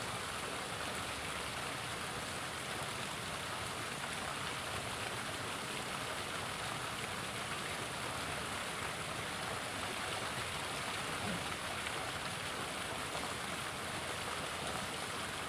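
A small river flowing: a steady, even rush of water.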